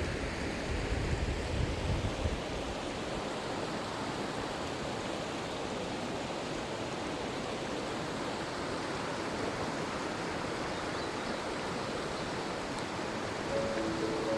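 Steady rush of water from a mountain valley stream, with a low rumble in the first two seconds.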